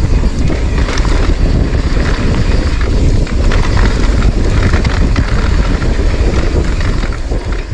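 Mountain bike descending a dry dirt trail at speed: wind rumbling over the bike-mounted camera's microphone, with the tyres running over the loose dirt and scattered clicks and rattles from the bike over bumps.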